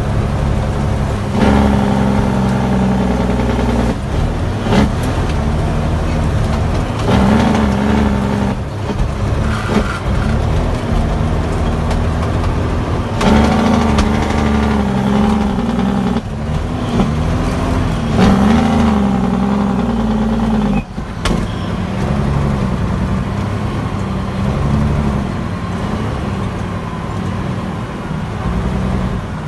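Heavy diesel truck engine heard from inside the cab as the truck is driven, its revs rising and dropping several times with brief breaks in the engine note.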